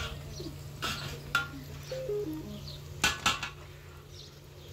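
Metal ladle clinking and scraping against a large aluminium cooking pot as the food in it is stirred, with a few sharp knocks, the loudest pair about three seconds in.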